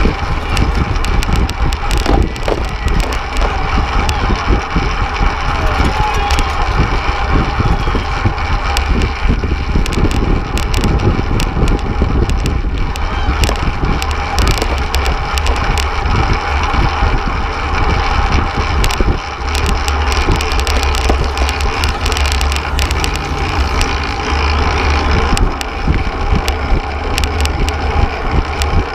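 Wind buffeting the microphone of a camera mounted on a fixed-gear track bike racing at speed, with continuous tyre and road noise and frequent small knocks and rattles.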